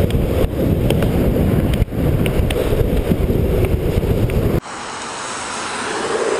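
Loud wind rushing and buffeting over the microphone of a camera carried by a downhill skateboarder riding at speed on asphalt. About four and a half seconds in it cuts off suddenly to a quieter, steady hiss.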